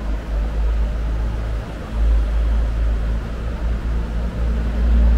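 Wind buffeting the camera's microphone: a loud, low rumble that swells and dips in gusts over a faint station background.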